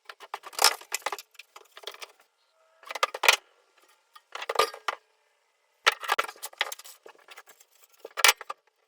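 Metal pieces, likely the end-table brackets for a stove platform, clinking and clattering as they are handled, in about five short bursts of sharp clicks with pauses between.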